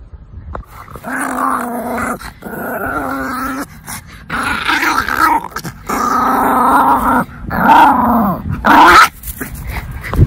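Small Yorkshire terrier growling in play while tugging on a ball, a run of about six growls, each a second or so long.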